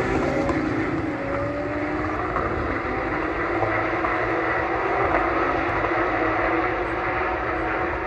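Porsche 911 GT3 Cup race cars' flat-six engines at full throttle at a distance, the pitch climbing over the first couple of seconds as they accelerate, then holding steady.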